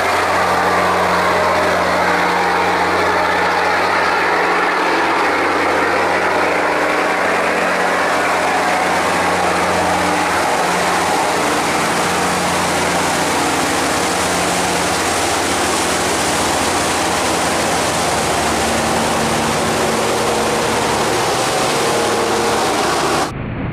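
Boat engines running steadily at close range as boats push through a sluice gate against the current, over the loud rush of white water churning through the gate. The engine note changes about halfway through as a loaded cargo barge comes alongside.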